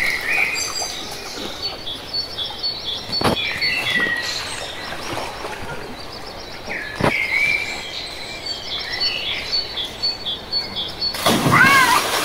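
Birds chirping in repeated series of short high notes over steady background noise, with two sharp knocks and a brief, loud high-pitched call near the end.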